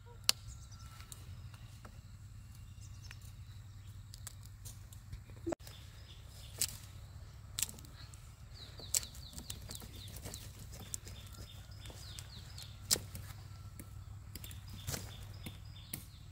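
Irregular sharp knocks and clicks, about eight, over a steady low hum, with a short run of faint high chirps about halfway through.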